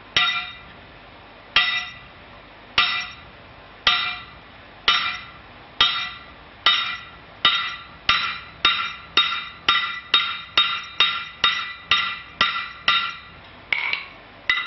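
Hammer blows on the end of a red-hot steel bar standing in a bolster on the anvil, upsetting it to form a tenon shoulder. About twenty ringing metallic strikes come about one a second at first, then quicken to about two a second, with a last pair near the end.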